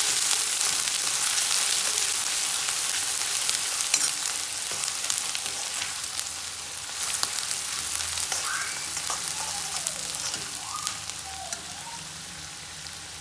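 Chopped onion sizzling and crackling in hot mustard oil in an iron kadhai, stirred with a steel ladle that clicks and scrapes against the pan: onion being fried for a tadka. The sizzle slowly dies down.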